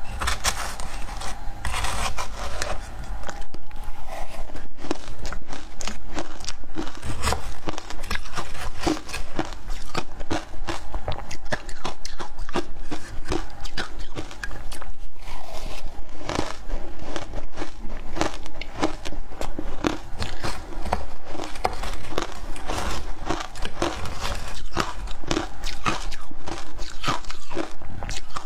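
Ice dusted with matcha powder being bitten and chewed close to a clip-on microphone: a continuous run of crisp crunches and crackles.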